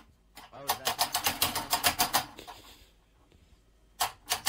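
A cat pawing and scrabbling at a wall and a hanging clock: a rapid run of sharp clicks about a second in, and another short run near the end.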